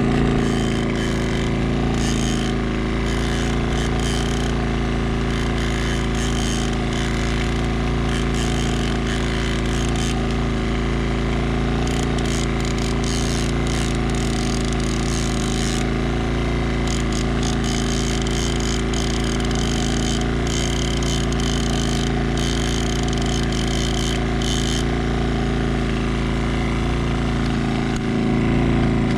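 Outboard motor running steadily. Over it comes rapid clicking and ratcheting from a fishing reel being cranked against a bent rod as a fish is reeled in. The clicking stops about four seconds before the end.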